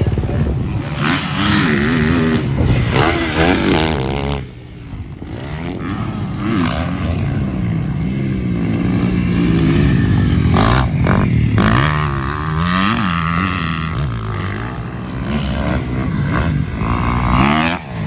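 Motocross dirt bike engines revving hard, their pitch rising and falling again and again as the throttle is opened and closed on the track, with a short drop in level about four and a half seconds in.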